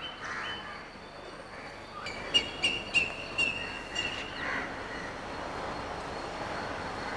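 Faint outdoor background noise with a bird calling in a quick run of short, high chirps from about two seconds in to about four and a half seconds in.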